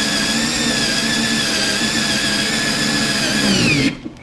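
Electric drill driving a 1-inch hole saw through a thick wooden desk top, running with a steady whine. Near the end the pitch falls as the drill is let off, and it spins down to a stop.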